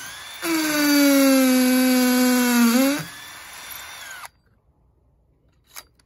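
Cordless drill driving a Tapcon concrete screw through a steel hold-down bracket into a concrete pad: a steady motor whine for about two and a half seconds, its pitch sagging slowly under load, then stopping. A single faint click near the end.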